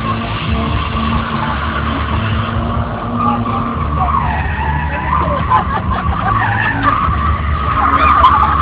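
Scion FR-S drifting: its flat-four boxer engine runs under power while the rear tyres squeal in a wavering, continuous skid. The sound grows louder near the end.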